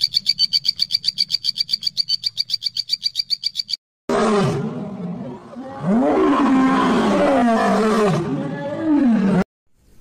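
A rapid, even high trill of about eight pulses a second for the first four seconds, then a lion growling and roaring in long calls that rise and fall in pitch for about five seconds.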